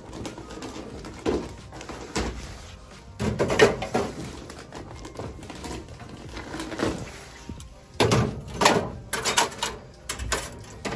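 Aluminium drink cans being loaded into the metal can columns of a soda vending machine: irregular clanks, knocks and rattles of cans and sheet-metal racks, with a quick cluster of them about eight seconds in.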